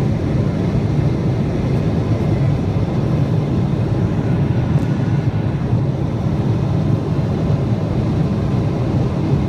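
Steady, unbroken low drone of a Boeing 777-200LR's GE90 engines and the airflow over the airframe, heard inside the passenger cabin while the airliner climbs after takeoff.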